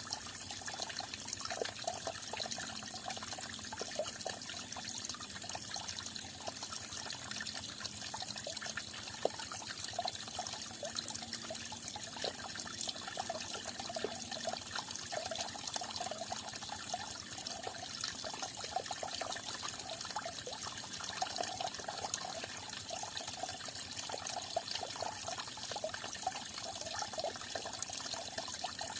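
Falling water trickling and splashing steadily, with a continuous patter of small bubbling splashes.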